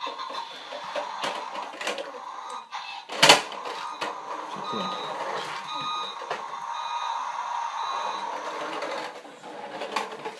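Battery-powered toy fire truck's electronic sound effects, playing a steady run of short repeating beeps. One sharp knock of a toy a little over three seconds in.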